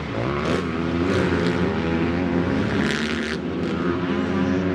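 Dirt bike engine running under throttle on a motocross track, its pitch rising and falling as the rider works the throttle.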